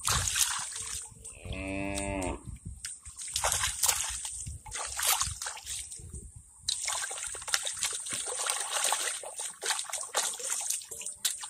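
Hands splashing and sloshing in shallow muddy water. A cow moos once, about a second long, a second and a half in.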